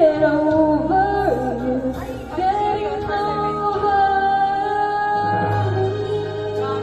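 A woman singing a slow pop ballad over a karaoke backing track, holding long notes with vibrato above a steady bass line.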